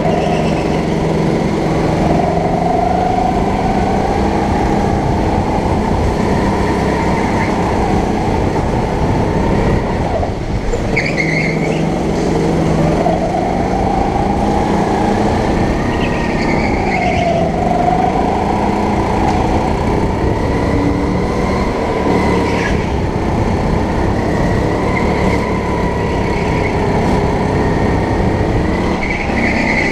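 Go-kart engine running hard through a lap, its pitch dipping and climbing again several times as the kart slows for corners and accelerates out.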